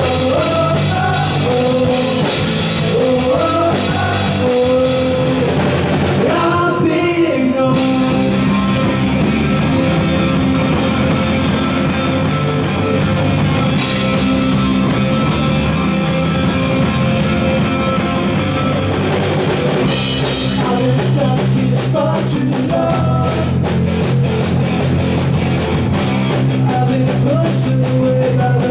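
Live rock band playing: sung vocals over electric guitar, bass guitar and drum kit. About two-thirds of the way through, the drums and cymbals pick up a fast, even beat.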